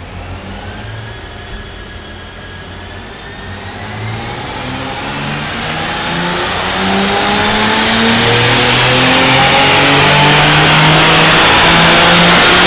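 Stock Nissan 370Z's 3.7-litre V6 making a full-throttle pull on a chassis dyno. The engine note rises steadily in pitch as the revs climb, growing much louder from about four seconds in and staying loud near the end.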